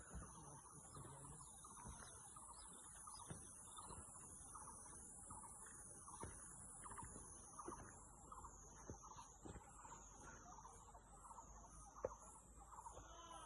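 Faint insect chorus: a high whine that rises and falls about once a second, quickening about halfway through, over many short repeated chirps.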